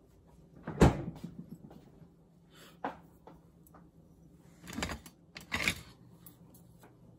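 Knocks and clatter of things being handled in a kitchen: one sharp, loud knock about a second in, a lighter click near three seconds, and a few more knocks close together between about five and six seconds.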